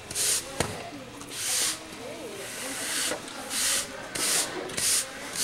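A ridden horse trotting on arena footing: a string of short hissing swishes, irregularly spaced about once a second, with a single sharp click about half a second in.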